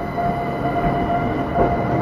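Tokyo Metro Ginza Line 1000 series train rolling slowly, its wheels knocking over rail joints now and then over a low rumble and a steady whine.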